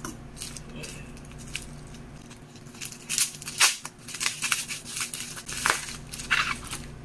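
A plastic packaging bag crinkling as it is handled, then scissors snipping into it. Several sharp crackles and snips come from about three seconds in.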